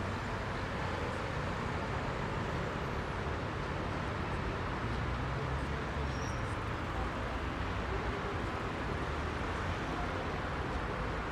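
Heavy rush-hour road traffic: a steady wash of car and bus engines and tyre noise, with no single vehicle standing out.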